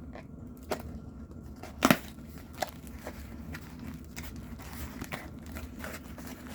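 A handmade Damascus knife cutting: a run of small scrapes and clicks, the loudest about two seconds in.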